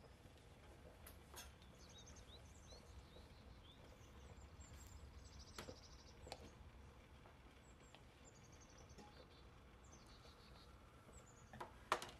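Faint birds chirping and trilling in the background over a low steady hum, with a few light clicks; the sharpest click comes near the end.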